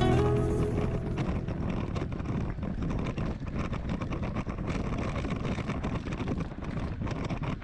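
Wind buffeting the microphone over a steady rumble with rapid small clicks and rattles, the noise of riding along a rough trail. A music chord dies away in the first second.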